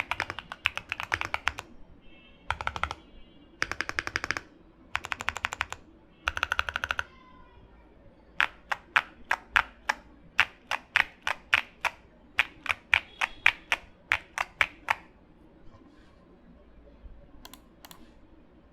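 Clacky typing on a Bakeneko65 aluminium-case mechanical keyboard with lubed Coffee Chip Ice Cream tactile switches and GMK Jamon clone keycaps. Quick bursts of typing in the first seven seconds, then single keystrokes about three a second, with a few faint taps near the end.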